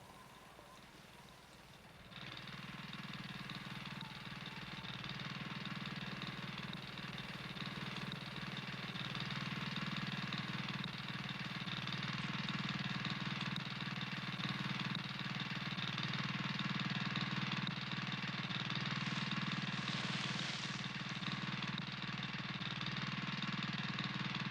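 A van engine running steadily as it drives, starting about two seconds in and slowly growing louder.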